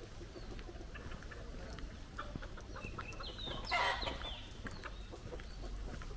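A chicken squawking once, a harsh call a little over halfway through, over light ticking footsteps on hard paving.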